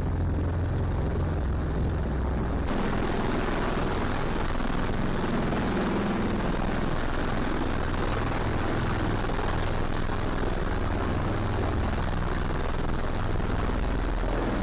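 Steady, loud aircraft engine noise that holds an even level without rising or falling. It starts suddenly, and about two and a half seconds in it turns brighter in the highs.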